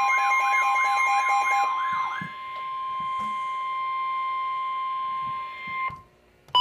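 Emergency Alert System attention tone: a steady single high tone that holds for about six seconds and cuts off suddenly. For the first two seconds a warbling, pulsing alarm sounds over it, and a short beep comes near the end.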